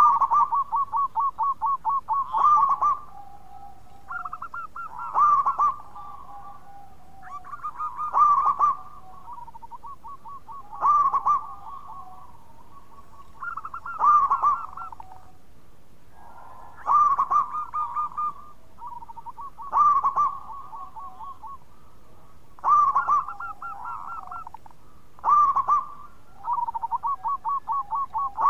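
Zebra dove (perkutut) singing its cooing song: a rolling run of quick pulsing notes ending in a louder coo, repeated about every three seconds, around nine times.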